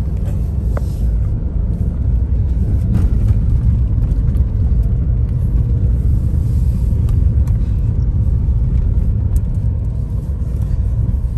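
Ford Bronco driving along a dirt trail, heard from inside the cabin: a steady low rumble of engine and tyres on the dirt, with a few light clicks.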